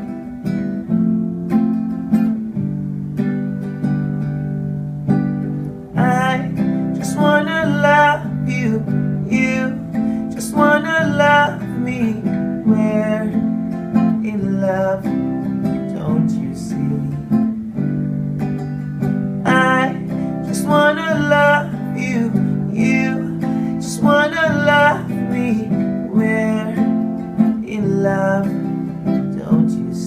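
Acoustic guitar strummed in a steady rhythm. A man's voice sings over it in wavering phrases from about six seconds in and again from about twenty seconds in.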